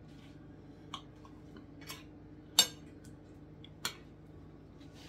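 Knife and fork clicking and scraping against a ceramic plate while cutting food: a few separate sharp clinks, the loudest about two and a half seconds in.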